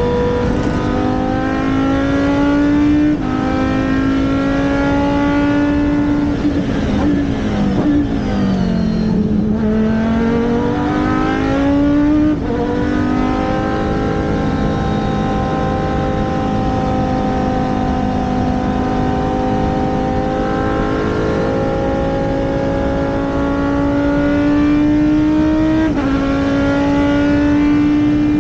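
Race car engine at full load on track, its pitch climbing slowly through long pulls and dropping sharply at upshifts about 3, 12 and 26 seconds in. Around 9 seconds the pitch sweeps down and climbs again as the car slows for a corner and accelerates out.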